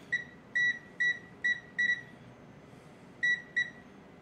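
Digital multimeter's continuity beeper sounding a run of short, high beeps, about seven, with a pause in the middle, as the probes touch wire ends one after another. Each beep signals continuity: the wires touched are electrically connected in the same coil channel.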